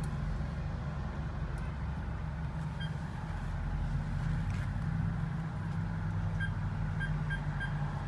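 Car engine and road noise heard from inside the cabin while the car is driven slowly into a parking spot. A few short electronic beeps come once about three seconds in and four times near the end.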